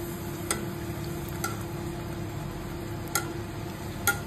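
Puchka (pani puri) dough deep-frying in hot oil in a wok, sizzling steadily while a spoon ladles oil over it. Four short sharp ticks are spread through it.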